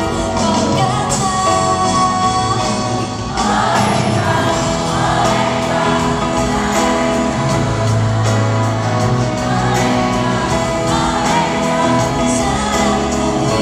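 A woman singing a pop song live with band accompaniment, heard from the audience in a large arena. The music grows louder and fuller about three seconds in.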